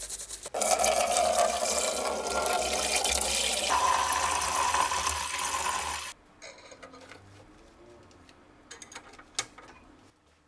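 Water pouring steadily into a container, filling the saltwater electrolysis bath. The pour stops abruptly about six seconds in, followed by a few faint clicks.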